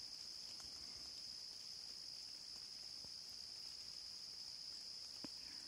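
Steady high-pitched trilling of insects chorusing in the background, with a few faint isolated ticks.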